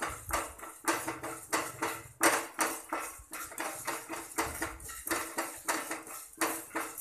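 A wooden spatula scrapes and stirs dry spice seeds (coriander, urad dal, cumin, fenugreek) around a kadai as they roast. The strokes are quick and even, about three a second.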